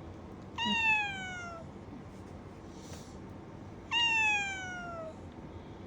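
Domestic cat meowing twice, about three seconds apart; each meow is about a second long and falls in pitch.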